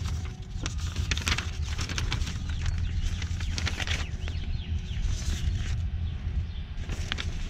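Sheets of printed paper rustling and crackling as the pages are handled and shuffled, over a steady low rumble. Birds chirp faintly in the middle.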